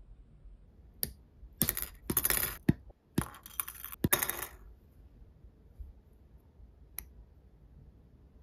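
Chrome-plated plastic kit runner of 1/12-scale spoked wheels clattering and rattling as it is handled, with a few sharp clicks of side cutters snipping parts off the runner, the last one near the end.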